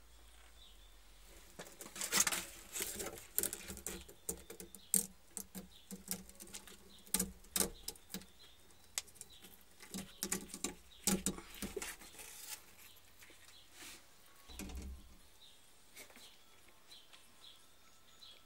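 Handling noise in a green iguana's terrarium: irregular rustling, scratching and sharp clicks as a hand reaches in among the artificial plants and wood and takes hold of the iguana. The noises are busiest from about two seconds in to about twelve, with a dull thump around fifteen seconds.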